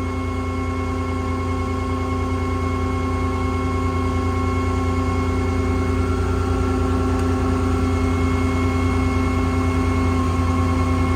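VanAir RC40 service-truck air compressor running and building air: a steady, even mechanical hum that grows slowly louder.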